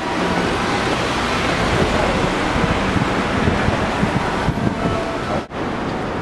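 Busy city street ambience: road traffic running with a steady noise, with indistinct voices of passers-by. The sound drops out for an instant near the end.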